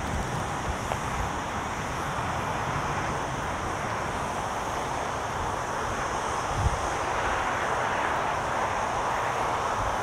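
Wind buffeting a camera's built-in microphone over a steady rushing noise, which swells a little in the second half, with a low bump about two-thirds of the way through.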